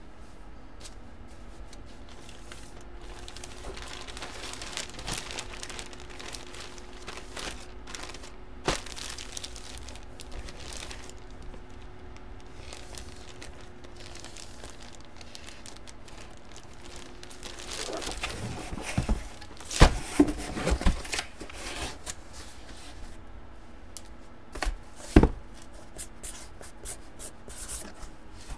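Packaging being handled: crinkling and tearing with scattered clicks and knocks, loudest in a cluster about two-thirds through and again briefly near the end, over a faint steady hum.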